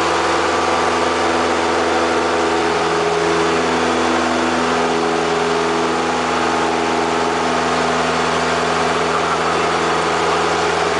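Single-engine light aircraft's propeller engine running steadily, heard from inside the cockpit.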